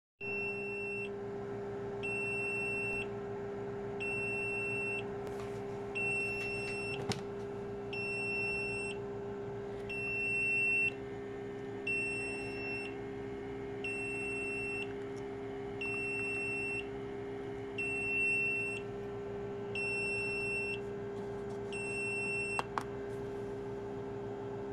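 Automatic egg incubator's alarm beeping: a high tone about one second long, repeating every two seconds, over the steady hum of the running incubator. The alarm goes off while the faulty humidity sensor reads a false low 26%.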